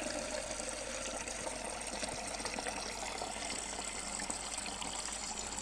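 Steady stream of water running from a refrigerator's water dispenser, fed through the newly repaired and extended water line.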